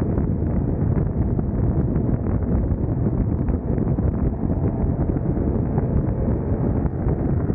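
Wind rushing and buffeting steadily on the camera microphone of a motorcycle riding at highway speed, with low road and engine rumble mixed in.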